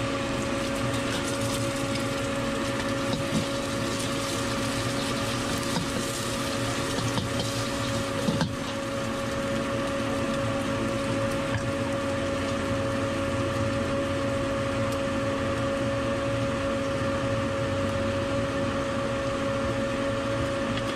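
Pork and egg sizzling in oil in a wok over a steady mechanical hum from the stall's burner and fans, with a few clicks and scrapes of the metal spatula against the wok.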